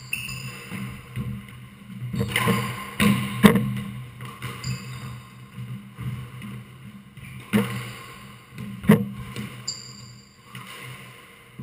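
Squash ball being hit in a rally: sharp knocks of racket strikes and the ball hitting the court walls, five of them in two clusters, with short high squeaks of shoes on the wooden floor. A steady low hum runs underneath.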